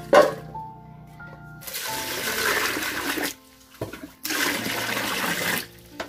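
Sliced jack beans tipped from a colander into an enamel basin with a short clatter and splash, followed by two long pours of water into the basin.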